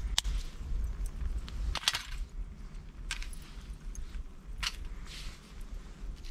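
Small twigs and sticks snapping and cracking, with a twig fire burning in a folding steel hobo stove: a few sharp cracks spaced a second or more apart, the loudest about two seconds in.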